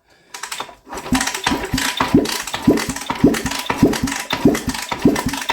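1973 Honda CL350 twin engine being cranked over without firing for a compression test, labouring through its compression strokes in an even pulse about twice a second, starting about a second in.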